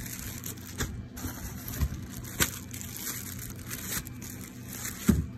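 Clear plastic poly bags crinkling and crackling as packaged shirts are handled, with scattered sharp crackles and a single thump near the end.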